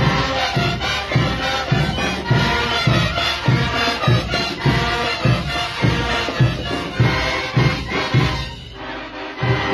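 A large school brass band playing brass instruments and drums over a steady beat, a bit under two beats a second. The sound thins out briefly near the end, then the full band comes back in.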